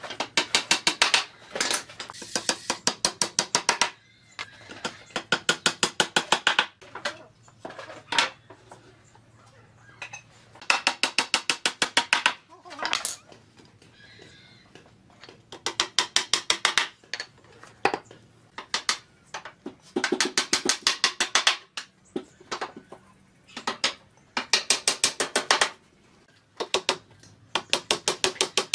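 A ratchet clicking in fast, even runs of one to two seconds, repeated every few seconds, with a few single clicks between.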